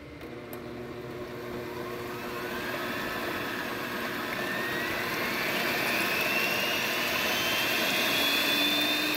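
Electric stand mixer with twin beaters whipping six egg whites in a stainless steel bowl, switched on at the start. The motor and whisking noise grow steadily louder, with a whine that slowly rises in pitch, as the whites are beaten toward a thick foam.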